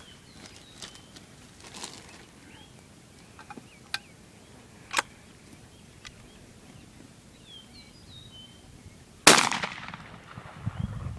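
A single-barrel, hammer-cocked 20-gauge shotgun fires once near the end: one loud blast, its echo trailing off over about a second. A couple of smaller sharp clicks come a few seconds before the shot.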